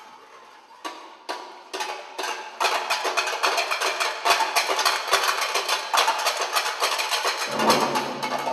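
Handheld metal plates struck and clattered by several performers. It starts with a few separate clicks, then builds into a fast, dense clatter of many ringing strikes. Near the end a low steady tone comes in.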